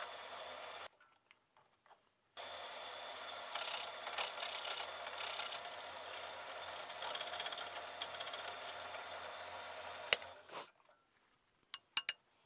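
Drill press motor running while the twist bit bores into a small block held in a machine vise, the cutting noise growing louder in stretches. The sound breaks off briefly near the start. About ten seconds in, a sharp click comes and the motor stops, followed by a few quick clicks.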